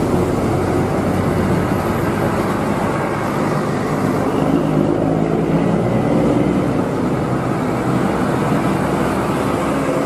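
Large tour coaches driving past on a road: a steady drone of diesel engines and tyre noise with a shifting low hum.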